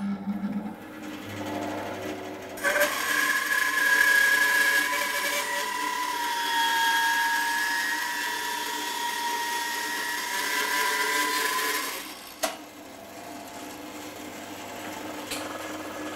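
Record Power BS300E 12-inch bandsaw with its 1 hp motor ripping a thick block of yellow pine along the grain. The blade cuts steadily with a whining tone from about three seconds in until about twelve seconds in, then a single knock, after which the saw runs on without load.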